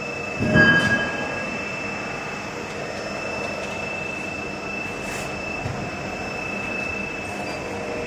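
Injection moulding machine running with a refrigerator-panel mould clamped in it: a steady mechanical noise with a high steady whine, and a short louder surge about half a second in.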